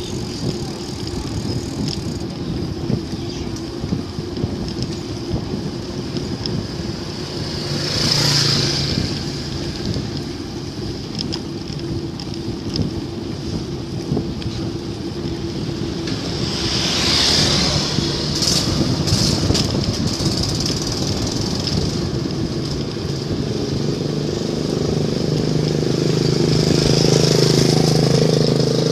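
Road traffic passing a moving bicycle: a vehicle swishes past about eight seconds in and another about seventeen seconds in, over a steady rush of wind and road noise. Near the end an engine's hum grows louder as it draws close.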